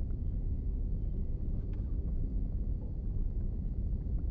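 Steady low rumbling noise with no clear rhythm or pitch.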